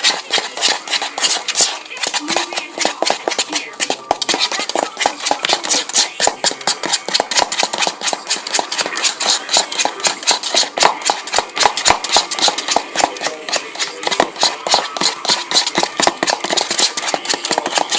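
Spoon stirring quickly in a bowl, a fast run of clicks and scrapes against the bowl as dish soap and baking soda are mixed into slime.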